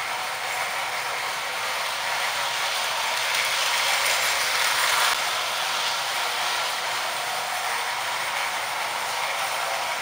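Lionel 392E Standard Gauge steam locomotive and its Stephen Girard passenger cars running on tinplate track: a steady mechanical rattle of motor gears and wheels on the rails. It grows louder for a couple of seconds, then drops abruptly about halfway through.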